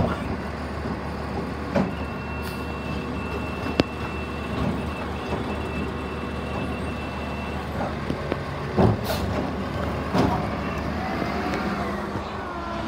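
Automated side-loader garbage truck's hydraulic arm gripping a blue recycling cart, lifting and tipping it into the hopper, then lowering it back to the ground, over the truck's running engine. Several sharp knocks and clatters as the cart is handled and emptied, the loudest about nine seconds in.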